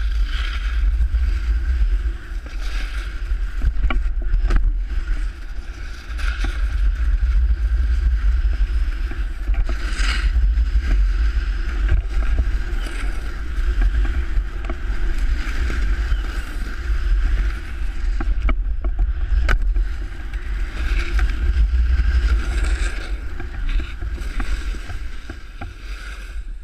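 Snowboard sliding and scraping over packed snow, with a steady low rumble of wind on the pole-mounted camera's microphone and a few sharp clicks.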